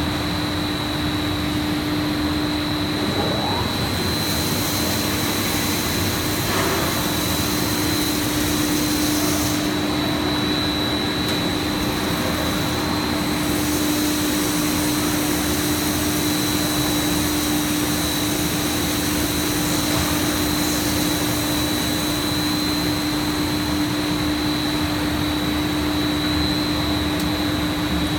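Plastic sheet extrusion line and its auxiliary machinery running: a steady mechanical drone with a constant low hum and a thin high whine.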